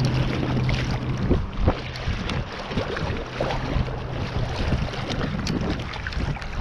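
Shallow river current rushing around a wading angler's legs, with wind buffeting the microphone and scattered splashes and knocks as a trout is brought into a landing net.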